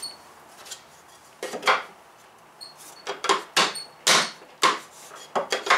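Steel drawer slide and wooden spacer sticks handled against a plywood wall: a string of sharp clicks and knocks, the loudest about four seconds in, a couple with a brief metallic ring.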